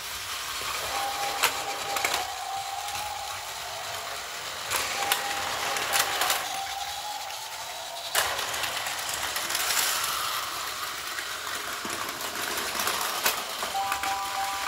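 Battery-powered Plarail toy trains and station mechanism running: a steady whir from the motor and the wheels on plastic track, with sharp plastic clicks and clacks several times.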